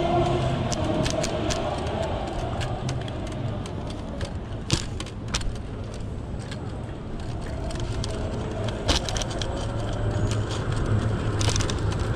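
Street-ride noise from a Segway Ninebot ES4 electric scooter: a steady low rumble of its wheels rolling over the pavement, broken by occasional sharp clicks and rattles as it goes over bumps.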